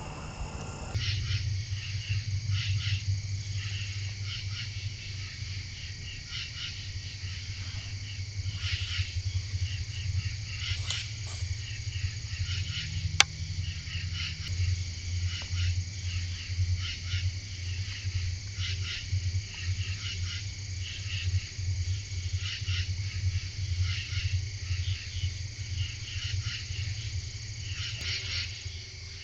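Chorus of crickets and other insects: a steady, high, rapidly pulsing trill. A low steady hum runs underneath, and there is one sharp click about thirteen seconds in.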